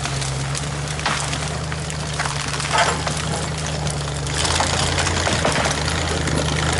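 Engine running steadily at an even speed, with crackling and clicks over it; it gets a little louder about four seconds in.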